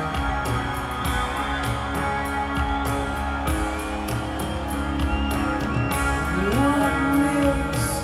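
Rock band playing live, with guitar and a steady drum beat, and a rising glide in pitch about six and a half seconds in.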